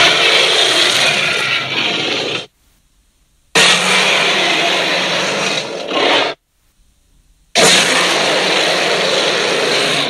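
Designed Tyrannosaurus rex roar sound effect, layered from big-cat and movie-monster growls: three long, harsh roars of about two and a half seconds each, each starting abruptly, with short silences between.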